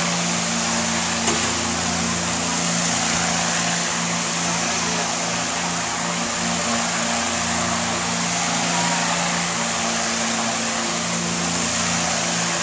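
Kiddie rocket ride's central drive motor running with a steady low hum and a hiss of machinery as the cars circle.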